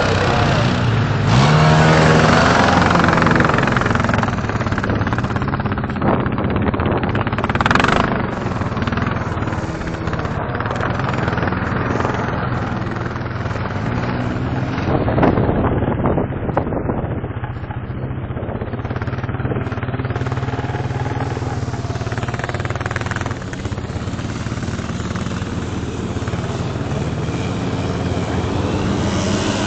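Utility ATV engine running at varying revs as the quad slides and spins on snowy ice, its pitch climbing sharply about a second and a half in. Bursts of rushing noise come and go over the engine.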